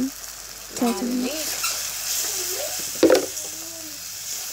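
Onion-tomato masala sizzling in hot oil in a pan while a wooden spatula stirs it, with a sharp knock of the spatula on the pan about three seconds in.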